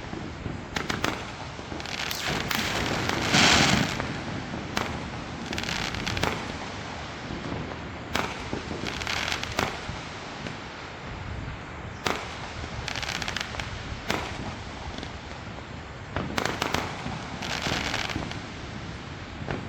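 Fireworks going off in a steady string of bangs with patches of crackling, the loudest cluster about three and a half seconds in.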